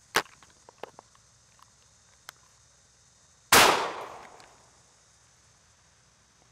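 A few sharp metallic clicks as the Savage Model 42 is handled, the loudest right at the start, then about three and a half seconds in a single very loud .410 shotgun shot that rings off over about a second.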